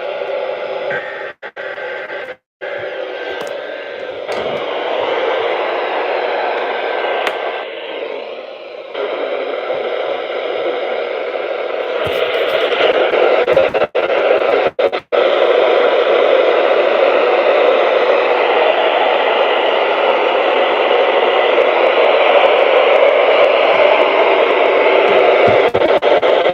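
Radio static: a steady hiss from a software-defined radio receiver tuned to the KIH28 NOAA Weather Radio channel on 162.475 MHz, the channel giving only noise. It cuts out briefly twice near the start and twice around the middle.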